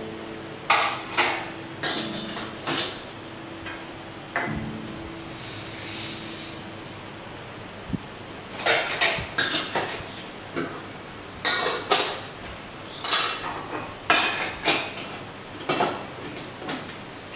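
Stainless steel spice box and its small steel cups and lids clinking and knocking together as the cups are set in and the lid is put on, in clusters of sharp metallic clinks with a pause of several seconds in the middle.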